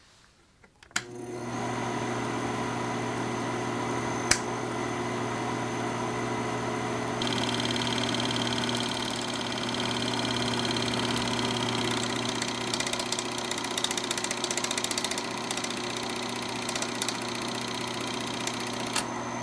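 Film projector sound effect: a steady mechanical whir that starts with a click, with a sharp click a few seconds in. Rapid crackling ticks run over it from about halfway through.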